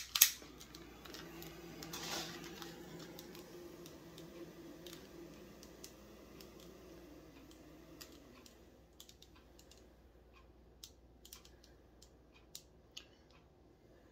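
A small pen-style butane torch sparked alight with a couple of sharp clicks, then its flame running with a steady low sound that fades out about eight seconds in. Scattered faint ticks follow while the flame heats heat-shrink tubing on a wire.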